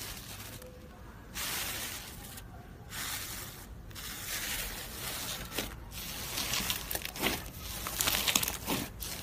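Foamy green slime in a plastic bowl being pressed flat by hand and then kneaded, giving bursts of crackling, squishing noise. Sharper crackles and clicks come thickest near the end, as both hands squeeze it.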